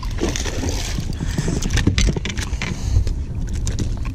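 Wind rumbling on the microphone while a small bass is reeled in on a spinning reel, with a run of sharp splashes and knocks around the middle as the fish is brought up out of the water and swung aboard.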